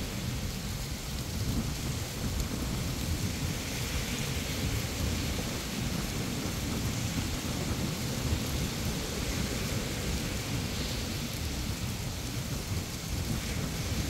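Wind buffeting the microphone in a fluctuating low rumble, over the steady hiss of surf washing onto a sandy beach.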